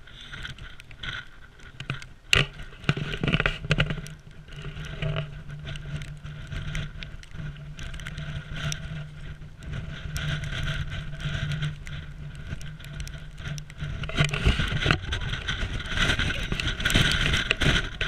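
Strong, gusty wind buffeting the camera's microphone: an uneven rumbling rush that swells and falls, with scattered knocks and rustles.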